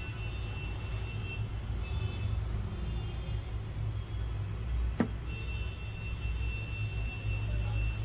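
Steady low rumble with a thin, steady high whine over it, and one sharp click about five seconds in.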